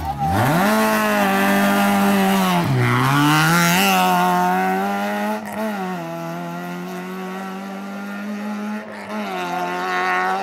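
Citroën Saxo rally car's engine revving hard out of a tight bend, pulling up through the gears with a gear change about three seconds in. It then holds high revs and grows quieter as the car drives away.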